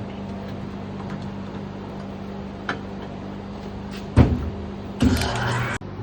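A chunk of petrified wood dropped onto concrete, breaking apart: one heavy thud about four seconds in, then a clatter of pieces about a second later that cuts off suddenly, over a steady low hum.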